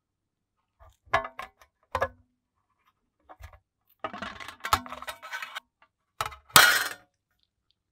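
Scissors cutting thin aluminium sheet: a few sharp snips about a second in and at two seconds, a longer stretch of crinkling, shearing metal from about four to five and a half seconds, then one loud snip near the end.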